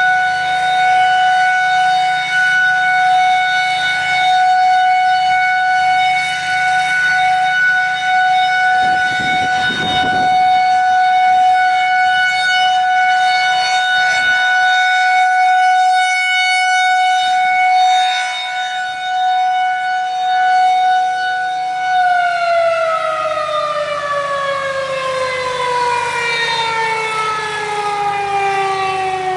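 Federal Signal 2001-SRNB outdoor warning siren sounding its steady alert, a single held tone of about 740 Hz. About three-quarters of the way through, the tone starts to fall steadily in pitch as the siren winds down at the end of its alert cycle.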